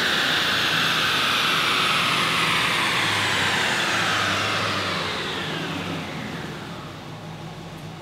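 Chassis dyno rollers and the 2018 Camaro SS's driveline coasting down after a pull, a high falling whine, while the 6.2 L LT1 V8 runs low near idle underneath. The whole sound fades over the last few seconds.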